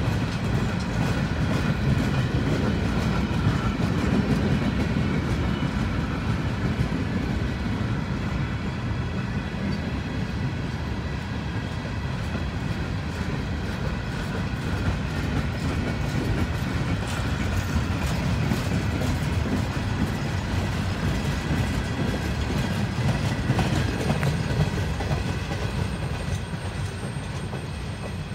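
BNSF manifest freight train's empty flatcars and gondolas rolling past: a steady rumble with the clickety-clack of wheels over rail joints, growing fainter over the last few seconds.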